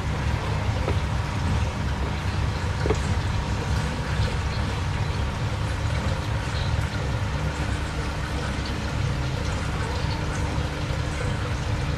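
Aquarium pump running with a steady low hum.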